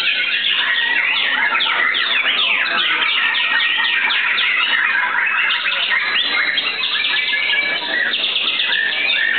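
White-rumped shama song: a dense, unbroken run of fast falling whistles and chattering phrases.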